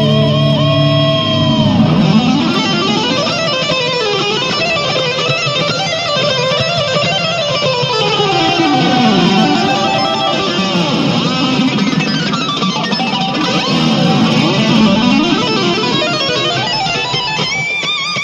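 Recorded music led by an electric guitar playing long sweeping pitch bends up and down. Near the end it gives way to held notes with vibrato.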